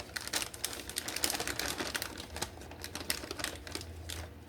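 Microwaved cauliflower rice being scooped into a half-cup measure: a quick, irregular run of small clicks and scrapes that stops near the end.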